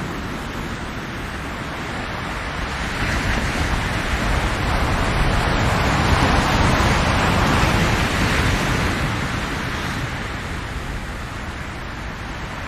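Ocean waves on a shore: a steady wash of surf, with one wave swelling up over a few seconds in the middle and then drawing back.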